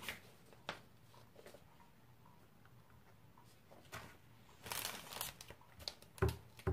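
Quiet handling of paper and card on a table: scattered light taps and clicks, a brief rustle of a paper sheet about five seconds in, and a couple of sharper taps near the end.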